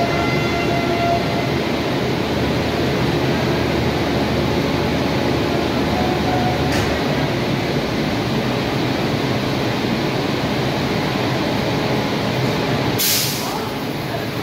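Passenger coaches of an express train rolling past slowly as it pulls out of the station, a steady rumble and clatter of wheels on rail. A short hiss of air comes near the end.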